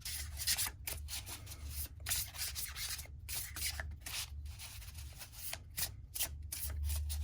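A thick oracle card deck being shuffled by hand: a run of irregular papery swishes and rubs of the cards sliding against each other.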